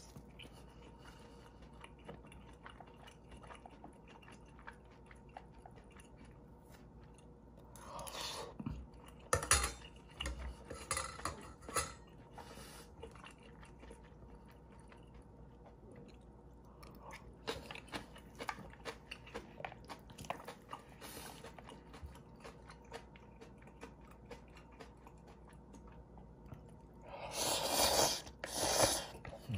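Close-miked eating of instant ramen with dumplings: wet chewing and small clicks of a spoon and chopsticks against plastic and metal bowls, with a few bursts of slurping. Near the end comes a long, loud slurp as broth is drunk from the tipped-up bowl.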